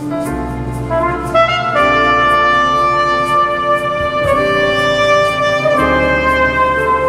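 Recorded music played through Salk Sound hi-fi loudspeakers: slow, held horn-like chords that change every second or two over a steady bass line.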